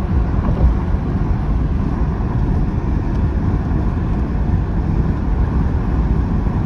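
Steady rumble of a car driving at speed on a highway, heard from inside the cabin: tyre and road noise with the engine running underneath.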